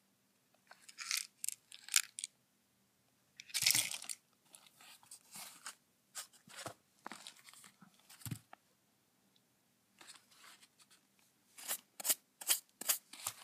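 Irregular short scraping and crackling handling noises close to the microphone, a dozen or so scuffs with brief pauses between them, the loudest about four seconds in and a quick run near the end.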